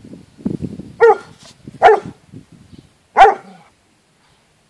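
A dog barking three times: sharp single barks, the first about a second in and the next two about a second apart. Low rumbling noise comes just before the first bark.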